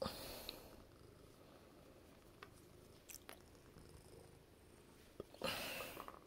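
Domestic cat purring faintly and steadily while being petted, with two louder rustles of fur brushing close by, one at the start and one about five and a half seconds in.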